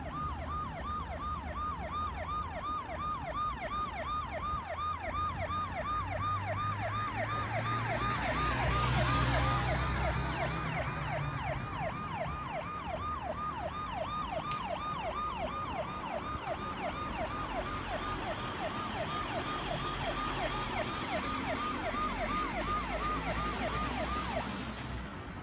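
Toy ambulance's electronic siren sounding continuously in quick rising-and-falling sweeps, several a second, dropping in level near the end.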